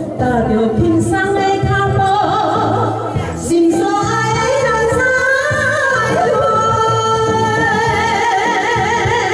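Two women singing a duet into microphones over amplified backing music, with long held, wavering notes.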